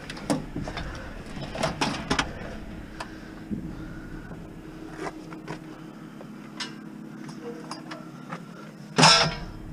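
Knocks, scrapes and light clicks of a heavy sheet-metal appliance cabinet being pushed into the cargo area of a minivan, busiest in the first couple of seconds, then a single louder bang about nine seconds in.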